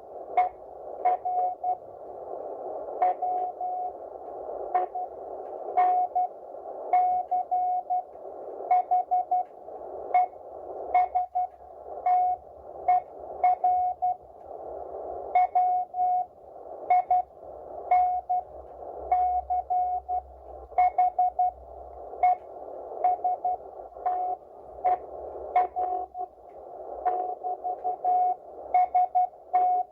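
Morse code (CW) on a ham radio receiver in the 40 metre band: a single steady tone keyed on and off in dots and dashes over a bed of band-noise hiss, with short sharp clicks among the keying.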